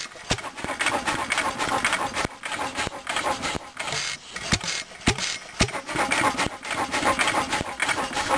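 McCormick-Deering Type M 1½ hp single-cylinder stationary gas engine running hit-and-miss: a few sharp, louder firing strokes spaced unevenly, with the valve gear and latch-out mechanism clattering steadily in between as it coasts on its flywheels.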